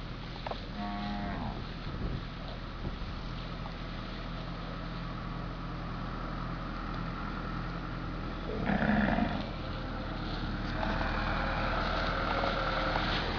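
A zebu heifer with its head caught in a tree fork mooing: a short call about a second in and a louder, longer bellow near nine seconds. Under it a tractor engine runs steadily and grows louder near the end as the tractor approaches.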